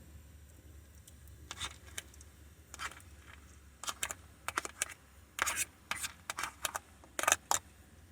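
A cooking utensil scraping in short, irregular strokes as pre-cooked quinoa is scooped and stirred into meat in a pan. The strokes come more often after about four seconds.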